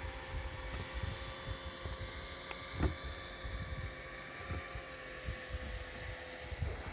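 An engine running at a steady pitch, with irregular low knocks and bumps over it. Its note fades out just before the end.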